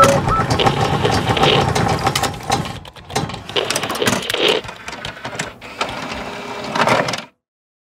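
Sound effects for an animated logo intro: dense mechanical clicking and ratcheting like turning gears, with swells of noise, cutting off abruptly a little after seven seconds in.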